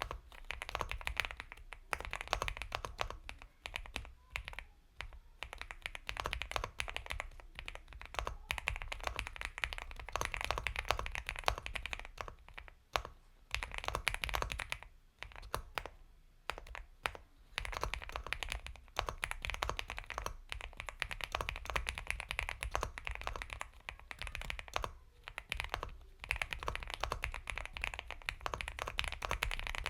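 Fast continuous typing on an Epomaker x Feker Galaxy 80 mechanical keyboard with Gateron Milky Yellow Pro linear switches: soft, creamy keystrokes in quick runs, with short pauses between bursts.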